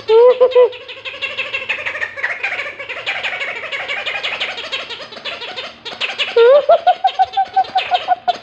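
A noisy toy giving wavering, meow-like squeals. A short one comes at the start, and a longer one from about six seconds in rises, then holds with a pulsing wobble.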